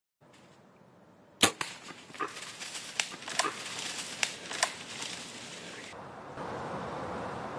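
Bow shot at a deer: one sharp snap about a second and a half in, followed by a few seconds of crackling and rustling in dry leaves as the deer runs off. Near the end a steady outdoor hiss.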